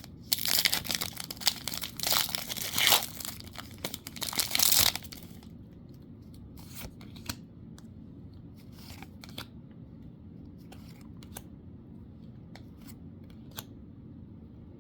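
A Magic: The Gathering booster pack wrapper being torn open and crinkled for about five seconds, then soft scattered clicks as the cards are handled.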